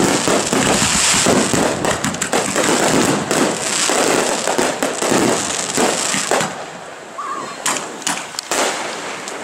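Aerial fireworks bursting in a dense barrage: a rapid, continuous mass of bangs and crackling from many shells at once. About six and a half seconds in it thins out to a few scattered pops.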